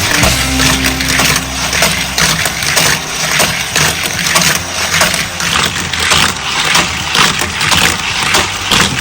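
Dense, rapid plastic clattering and rattling: Hot Wheels die-cast toy cars running on a motorized plastic raceway track.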